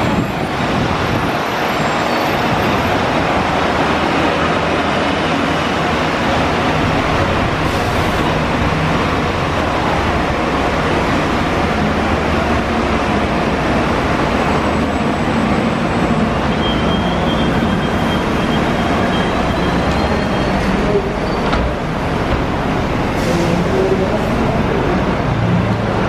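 Steady traffic noise from red double-decker buses running at a bus stop under a covered roadway, with a deep engine rumble.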